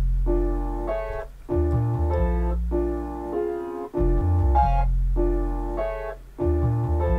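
Playback of a beat made in Native Instruments Maschine MK3: a chopped keyboard sample playing repeating chords over a stepping bass line, the loop coming round about every two and a half seconds.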